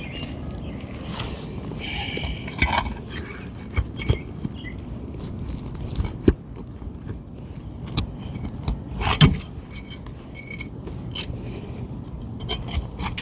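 Scattered metal clicks, clinks and scrapes of a roof snake hooked under a shingle, working at a stubborn roofing nail that is stuck at an angle. A short metallic ring comes about two seconds in, and the loudest knock about nine seconds in.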